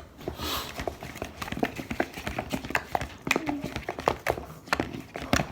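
A utensil clicking and knocking against a bowl as glue is stirred for slime: a quick, irregular run of taps, several a second.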